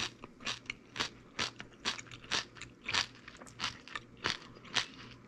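A person chewing a mouthful of raw tomatillo salsa with crisp crunches, about two a second.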